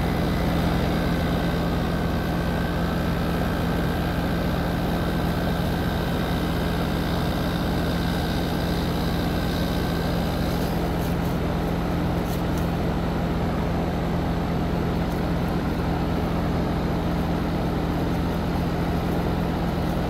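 Heat pump outdoor unit running with a steady hum as its compressor runs, freshly started on new start and run capacitors, a sign the failed-capacitor fault is cured.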